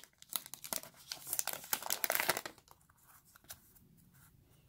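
Foil trading-card pack wrapper torn open and crinkled by hand: a quick run of crackles that dies down after about two and a half seconds.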